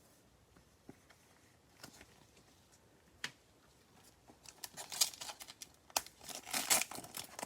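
Plastic trading-card pack wrapper being torn open and crinkled, the crackling starting about halfway through and growing denser, after a few faint taps.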